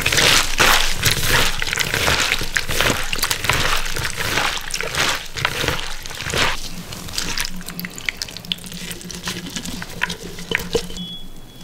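Wet, squelching rustle of shredded cabbage, carrot and cucumber being tossed and squeezed by hand in vinegar brine, in disposable plastic gloves, with many small crackles; it is louder over the first half and eases off. Near the end, a few light clicks as the slaw is pressed into a glass mason jar.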